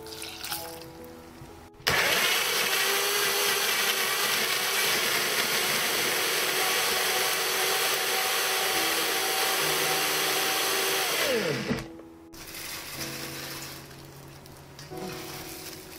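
Countertop blender running at full speed, grinding chunks of pear and onion with anchovy sauce. It starts abruptly about two seconds in and runs steadily for about ten seconds. Then the motor winds down with a falling whine.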